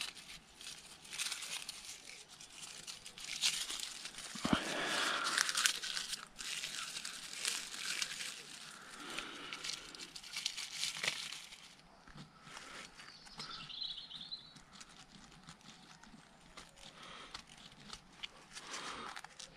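Dry leaves and thin wood shavings rustling and crackling as hands crumple and pile them into tinder for a fire, with a few sharp clicks among it. Busiest over the first twelve seconds or so, then quieter, sparser handling.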